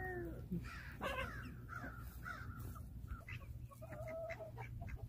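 Backyard hens calling: a series of short, harsh squawks and clucks, then one longer held call near the end.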